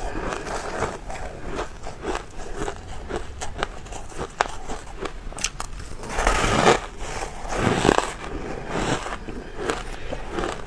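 Crunching and chewing of dry, powder-coated ice: scattered sharp crackles, then a loud bite into a chunk about six seconds in and another heavy crunch around eight seconds.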